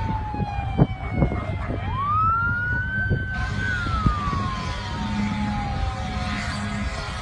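Emergency-vehicle siren in a slow wail: the tone falls, rises again about two seconds in, then sinks slowly over several seconds and starts rising near the end. Beneath it a steady low rumble, with a few sharp thumps in the first few seconds.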